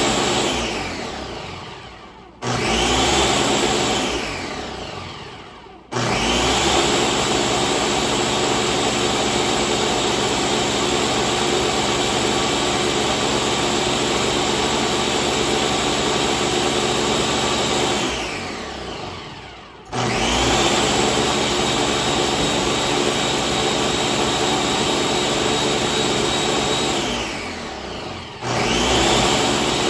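Countertop blender running its automatic smoothie program on a green smoothie. The motor runs at full speed, winds down with falling pitch, and starts up again four times, with one long unbroken run in the middle.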